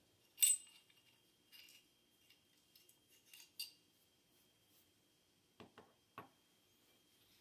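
Small steel AR-15 lower receiver parts clinking as they are handled: one sharp clink about half a second in, a few lighter clicks, then three quick knocks near the end as parts are set down on a wooden dresser top.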